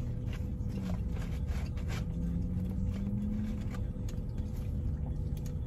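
Steady low hum inside a parked car, with faint scattered clicks and rustles of someone quietly chewing French fries.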